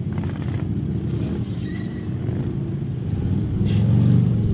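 Harley-Davidson police motorcycles' V-twin engines running at low speed and low revs as the bikes weave slowly through a tight cone course. The rumble gets louder near the end as one bike passes close.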